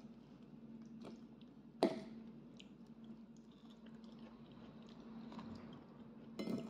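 Close-up chewing and mouth sounds of a person eating with a fork, with scattered small clicks. A sharp clink about two seconds in and a short clatter near the end, over a steady low hum.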